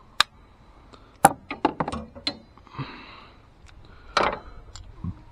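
Sharp metallic clicks and knocks of a spark plug socket and hand tools being worked loose and pulled out of a plug well in an engine. There is a single click at the start, a quick run of clicks about a second in, and one loud knock near the end.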